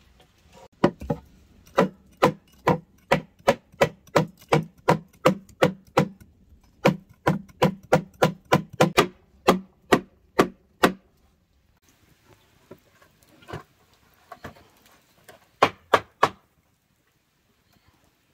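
A steady run of sharp striking blows, about two to three a second for some ten seconds with one brief break. After a pause come a couple of fainter knocks and then three quick strikes.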